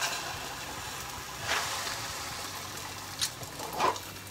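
Egg and toast sizzling in butter in a hot frying pan, a steady hiss that flares louder about a second and a half in. Near the end come two short knocks as the pan is lifted and moved off the burner.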